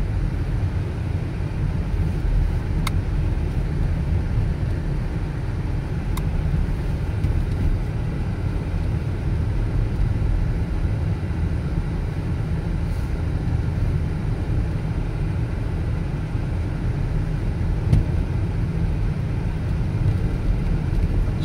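A car driving slowly over an icy, rutted road, heard from inside the cabin: a steady low rumble of engine and tyres, with a few faint clicks.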